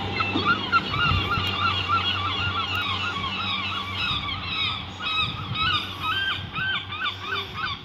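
A group of birds giving short, honking calls in quick succession, several a second, continuing throughout.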